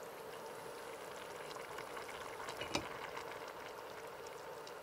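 Food cooking on a stove: a steady hiss with light crackles, and one sharp click a little past the middle.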